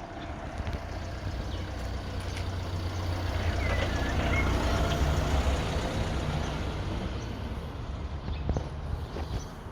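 A passing motor vehicle: a low rumble that swells to its loudest about five seconds in and then fades away.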